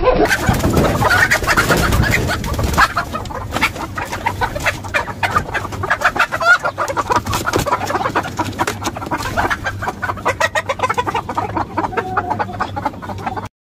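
Domestic hens clucking, many short clucks in quick succession, louder over the first three seconds.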